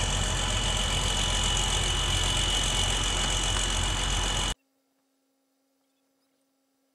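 A tractor's diesel engine idling steadily, then the sound cuts off abruptly to near silence about four and a half seconds in.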